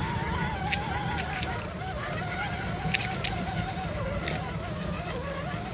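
Electric motor and gear whine of a radio-controlled rock crawler driving over rocky ground, its pitch wavering up and down with the throttle, over a steady low rumble, with a few sharp clicks of stones under the tyres.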